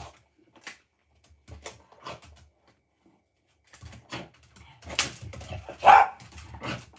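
A pet dog rummaging among household things: scattered knocks and rustles, with a louder sound about five seconds in and a short, loud, pitched sound about six seconds in.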